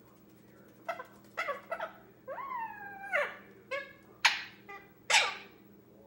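10-month-old male Indian ringneck parrot giving a string of short pitched calls and squawks. One longer call in the middle rises, holds and then drops away, and the two loudest, sharpest squawks come near the end.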